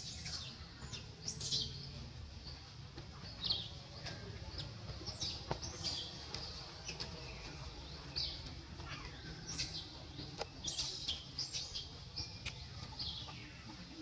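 Birds chirping: many short, scattered high chirps, some sliding down in pitch, over a low steady background rumble.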